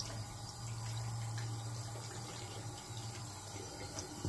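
Water running steadily from a tap into a bathroom sink.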